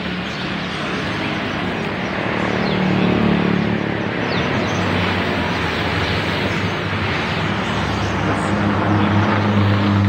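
A motor vehicle's engine running close by: a steady low hum under a broad rushing noise, growing louder near the end.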